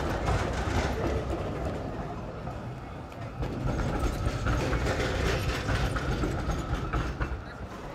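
Electric city tram rumbling past on its rails, over steady street noise.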